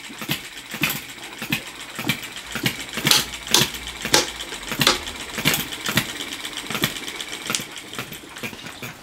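Stirlingkit B01 ball-top vertical hit-and-miss model engine running while driving a small generator, giving a regular train of sharp pops and clicks: about two strong ones a second with lighter clicks between.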